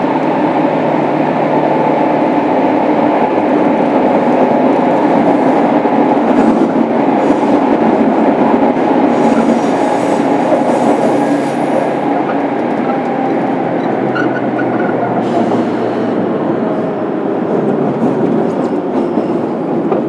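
Running sound of a JR Kyushu 103 series 1500 subseries electric train, heard from inside the motor car MoHa 103-1503: a loud, steady rumble of motors and wheels on rail in a subway tunnel, easing a little about halfway through.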